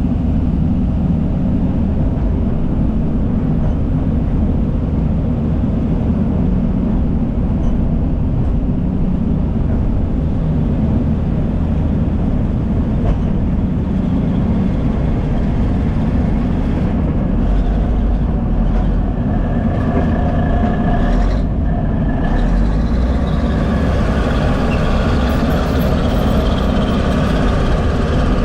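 Heavy diesel earthmoving machinery running steadily at work. From about nineteen seconds in, a set of higher whining tones joins the engine noise.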